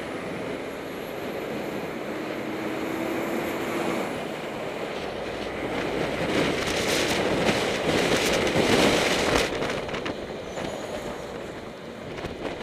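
Wind and road noise on a bike-mounted camera rolling downhill. A tanker lorry overtakes close alongside: its engine and tyre noise build from about five seconds in, peak, then drop away sharply a little after nine seconds.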